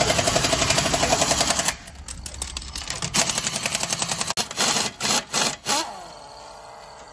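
Pneumatic impact wrench hammering rapidly in bursts as it loosens wheel nuts and front suspension bolts: one long run, then after a pause a string of shorter bursts. The last burst ends in a falling whine about six seconds in as the tool spins down.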